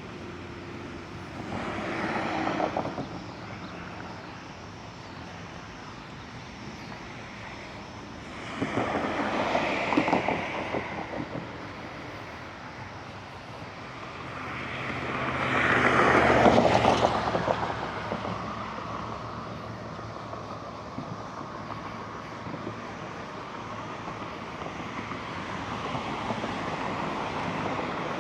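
Three cars pass by one after another, each swelling and fading over two or three seconds, the third the loudest, over a steady background hum.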